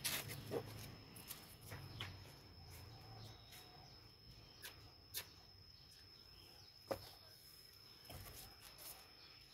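Quiet outdoor ambience with a faint, steady high-pitched whine and a few scattered sharp ticks. Right at the start there is a brief plastic rustle and knock as a black plastic nursery pot of soil is lifted.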